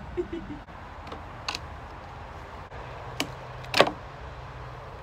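Wooden pallet being taken apart by hand: a few sharp wooden knocks as slats are pried and pulled off, the loudest about four seconds in.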